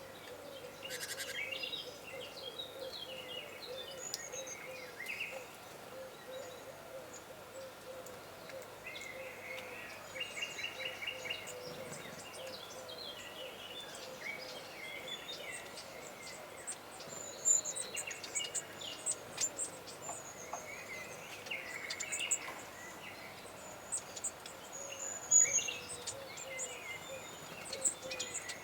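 Forest birdsong: several small songbirds singing and calling with short chirps and trills, over a continuous low wavering hoot-like sound, with a few sharp clicks in the second half.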